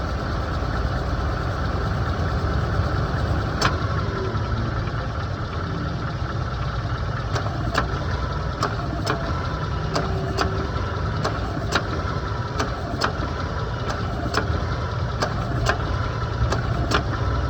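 Car engine idling with the AC compressor making sharp, irregular clicks over it, a 'tek tek' noise coming roughly once a second after the first few seconds.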